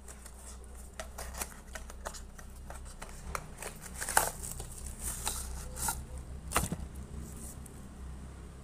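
A small cardboard box being opened by hand and a selfie-stick tripod in a plastic bag slid out of it: a run of irregular clicks, taps and rustles of cardboard and plastic.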